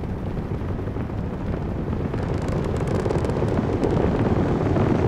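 Space Shuttle Endeavour's rocket engines at launch: a dense, steady rumble that grows louder about two to three seconds in, with crackling joining in.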